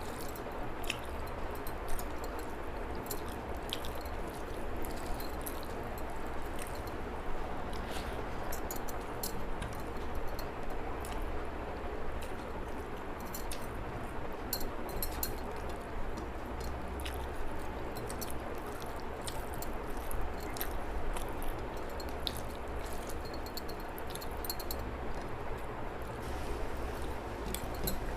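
Eating sounds: chewing and the soft squishing of food, with many small scattered clicks, over a steady low background hum.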